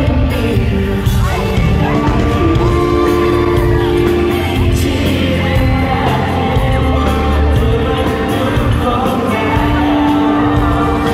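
Pop song performed live over amplified accompaniment, with a voice singing held notes and glides, and a crowd yelling and whooping in the background.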